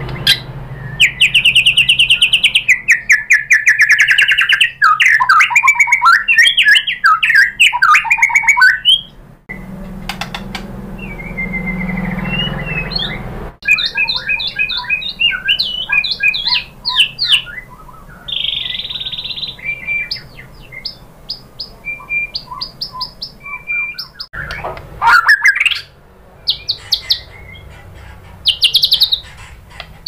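White-rumped shama singing a loud, varied song of fast trills, rising and falling whistled phrases and sharp chips, with short pauses between phrases.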